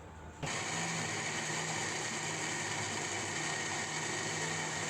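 Electric blender switched on about half a second in and running steadily, blending soaked beans into akara batter.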